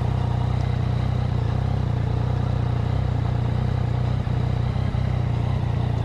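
Yamaha MT-09's three-cylinder engine idling steadily.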